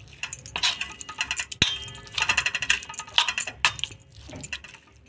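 Steel spoon clinking and scraping against a metal bowl while stirring a wet mix of semolina, grated coconut and milk, with many quick uneven clinks.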